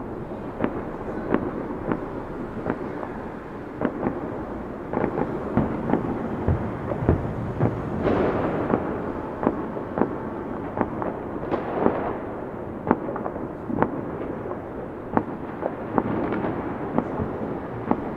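Fireworks going off: sharp bangs at irregular intervals, at times one or two a second, over a continuous rumbling crackle.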